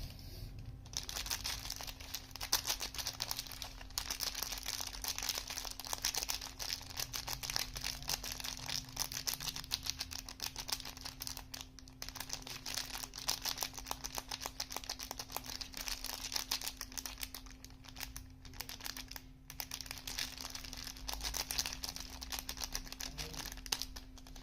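Close-miked crisp crackling and crinkling, many tiny clicks in quick succession, from a bar of soap and its packaging being handled and opened. The crackling breaks off briefly a few times.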